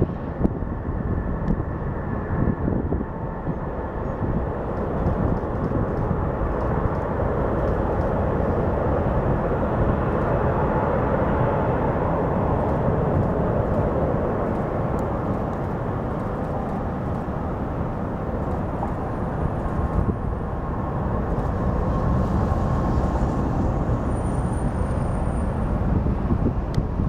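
Lockheed C-5 Galaxy's four TF39 turbofan engines climbing away after takeoff: a steady deep jet rumble, with a faint whine in the first couple of seconds.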